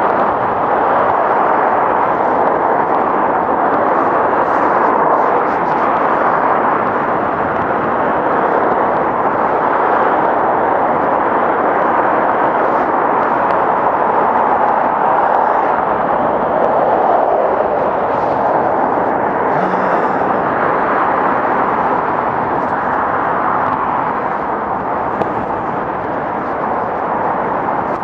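Steady wind rush on the microphone from riding an electric unicycle at speed, mixed with traffic noise from the busy multi-lane road alongside.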